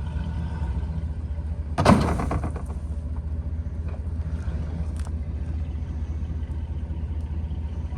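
Steady low rumble of a vehicle rolling slowly, heard from inside the cab, with one sharp thump about two seconds in and a faint click a few seconds later.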